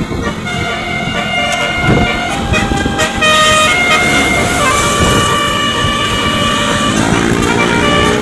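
Tour bus 'Basuri' telolet horn playing a tune of several tones at once, stepping from note to note over bus engine noise, getting louder about three seconds in.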